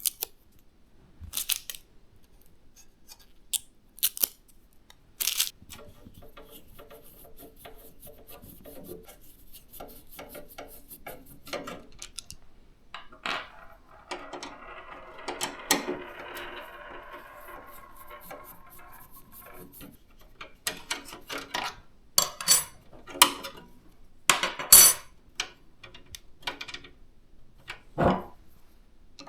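Hands handling PC parts and case hardware: irregular sharp clicks, taps and knocks of plastic and metal pieces, with a stretch of rustling about halfway through.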